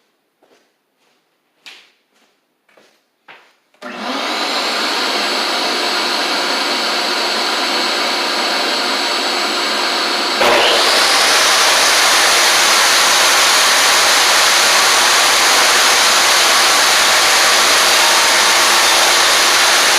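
A few light knocks, then a table saw fitted with a 24-tooth ripping blade is switched on about four seconds in and runs with a steady whine. About ten seconds in the sound suddenly grows louder and fuller and stays steady to the end.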